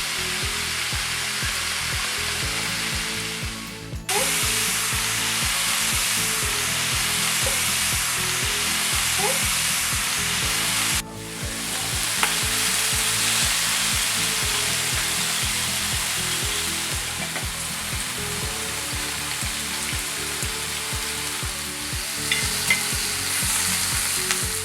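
Korean barbecue meat sizzling and frying on a hot grill, a dense, steady hiss that breaks off briefly twice, about four and eleven seconds in. Soft background music plays underneath.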